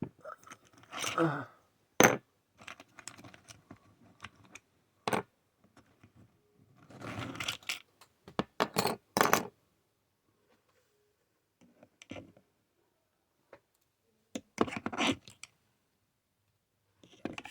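Small metal parts and a screwdriver being handled in the dismantling of a power strip: scattered clinks, clicks and short scrapes, with a sharp click about two seconds in and busier handling about seven to nine seconds in and again near the end.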